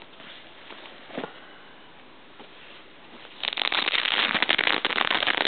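Velcro fly of firefighter turnout pants being pulled open: a loud crackling rip starting about three and a half seconds in and lasting about three seconds, after faint rustling of the heavy fabric.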